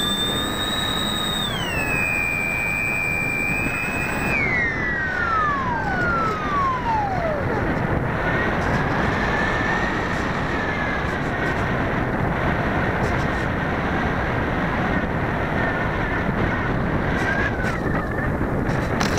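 Twin electric motors of a Multiplex EasyStar RC plane converted to twin motors, whining high and steady. Their pitch steps down about a second and a half in, then both fall away together about four seconds in as the throttle is cut. After that, steady rushing of air over the on-board camera as the plane glides in low.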